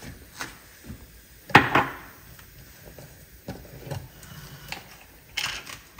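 Kitchen clatter: scattered knocks and clinks of pots and utensils, the loudest about one and a half seconds in, with a few more near the end.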